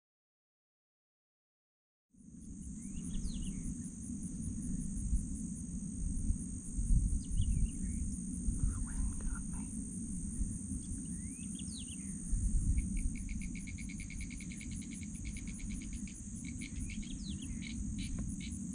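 Silent for the first two seconds, then a steady high buzzing of insects with birds calling over it: a few short downward-slurred calls and, about two-thirds through, a fast trill of repeated notes. A low rumble runs underneath.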